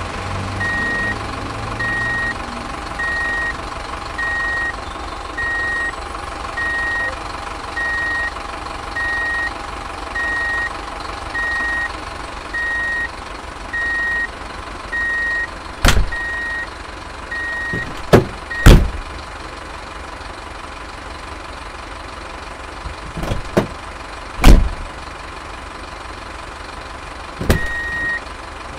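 Truck reversing alarm beeping about once a second over a steady engine hum. The beeping stops a little past halfway and returns once near the end. Several loud sharp knocks fall in the second half.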